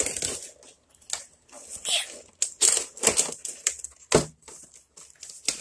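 Packaging being torn open and crinkled by hand: irregular rustling, crinkling and tearing, with one sharp click about four seconds in.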